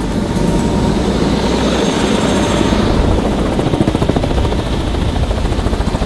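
Helicopter on the ground with its main rotor still turning: a loud, rapid, even beating of the blades. The sound grows louder right at the start as the cabin door is opened.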